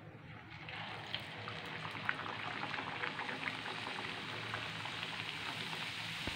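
A pea-stuffed kachori (koraishutir kochuri) deep-frying in hot oil in a pan: steady sizzling with scattered crackles. It starts about half a second in as the dough goes into the oil and stops abruptly near the end.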